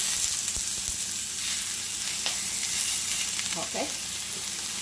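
Marinated pork loin searing in hot olive oil in a cast-iron pan: a steady frying sizzle just after the meat is laid in.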